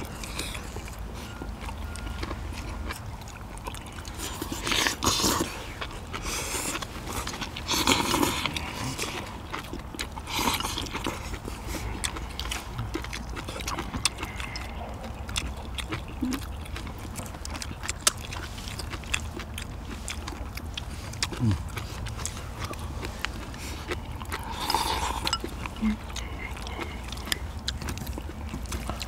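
Several people eating braised spicy seafood with chopsticks from bowls: chewing and slurping, with many short clicks of chopsticks on bowls and a few louder slurps. A steady low rumble runs underneath.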